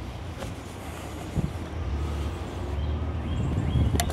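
Low steady background rumble, then a single sharp snap near the end as a bow is shot.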